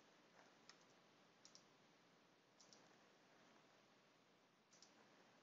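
Near silence broken by four faint computer mouse clicks at irregular intervals, each a quick double tick of the button.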